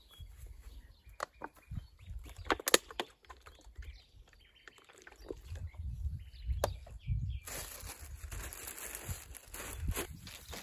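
Footsteps on dry gravelly ground and the knocks and clicks of cooking things being handled, with one sharp click about two and a half seconds in. About seven and a half seconds in, a steady hiss starts and carries on.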